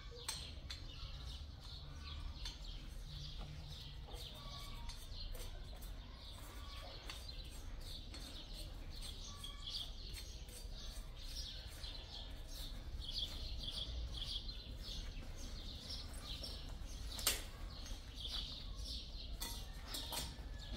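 Small birds chirping again and again over a low steady rumble, with one sharp knock about seventeen seconds in.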